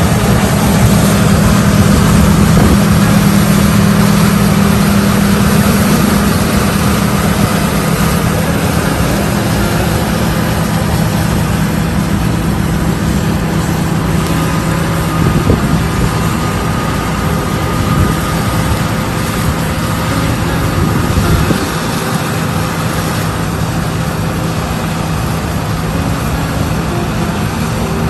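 Heavy engine of harvest machinery running with a steady low drone over a broad rushing noise, easing off slightly about 21 seconds in.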